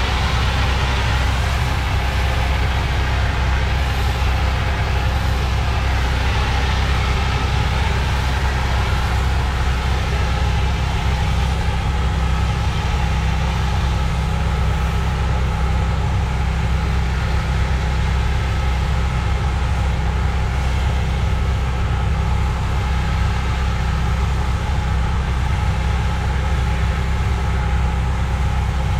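Gas-engine pressure washer running steadily under load, its low engine hum joined by the continuous hiss of high-pressure water spraying on concrete.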